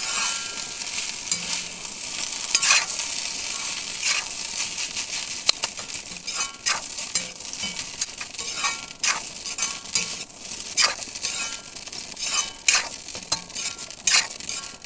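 Rice frying and sizzling in a metal kadai while a metal spoon stirs it, scraping and clinking irregularly against the pan.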